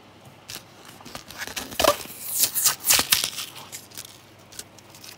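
Clear plastic blister pack being peeled and torn open from its card backing: irregular crinkling and crackling, loudest in a cluster of sharp crackles from about one and a half to three seconds in, then a few faint ticks.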